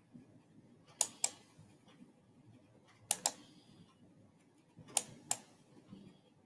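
Three pairs of sharp clicks about two seconds apart: a computer mouse button pressed and released about a quarter second later, once for each smudge stroke.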